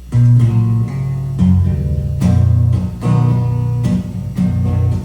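Acoustic guitar strumming the song's instrumental intro, with steady chord strokes and strong low notes, starting suddenly just after the count-in.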